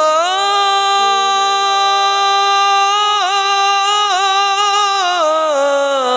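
A man singing a naat, a devotional Urdu song, holding one long drawn-out note with a few small turns in the middle and sliding down in pitch near the end.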